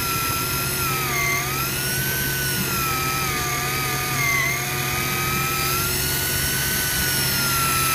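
Electric deep-drop fishing reel's motor whining steadily as it winds in line, its pitch drifting slowly up and down with the load, over a steady low hum.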